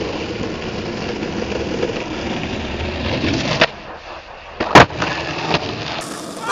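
Skateboard wheels rolling on rough asphalt, then a sharp pop of the tail about three and a half seconds in. A quieter moment while the board is in the air is followed by a loud clack as the skater lands, and the wheels roll on.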